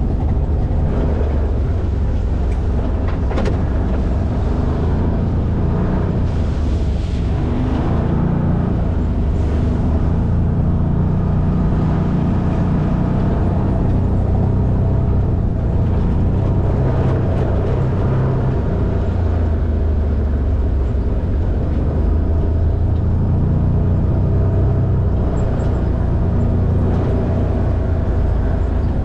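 Side-by-side off-road vehicle's engine running steadily under way over a rough dirt trail, heard from the driver's seat, with a few short knocks from the bumps.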